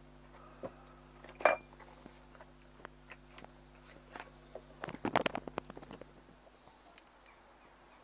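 Rummaging through a drawer: scattered clicks and knocks of small objects, a louder knock about a second and a half in, and a quick run of rattling clatter around five seconds in.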